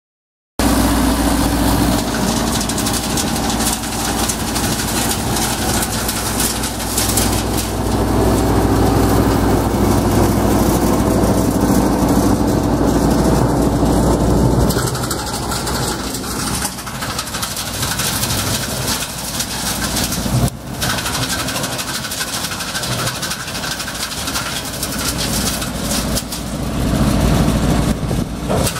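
Tractor diesel engine running steadily at idle. About halfway through, its deep rumble becomes weaker.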